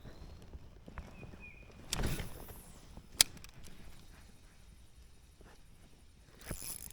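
Ultralight spinning rod cast: a swish about two seconds in, then a single sharp click about a second later.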